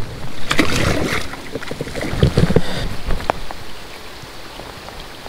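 Water splashing and sloshing at a kayak's side as a largemouth bass is let go, with a few knocks of handling against the hull. It settles to a steady, quieter wash of water about three seconds in.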